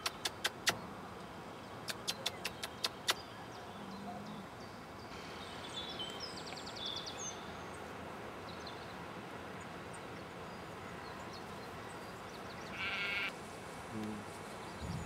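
Sheep bleating once near the end, over a quiet outdoor background, with a run of sharp clicks in the first few seconds.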